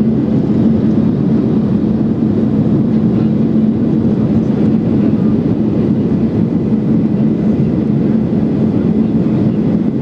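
Cabin noise inside a Boeing 737-800 in flight: its CFM56 jet engines and the rushing airflow make a loud, steady drone, with a steady low hum running through it.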